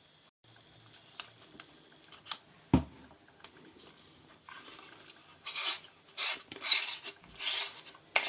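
Plastic parts of a broken LED disco bulb being handled: a few light clicks and a single knock, then repeated scraping and rubbing strokes over the last few seconds.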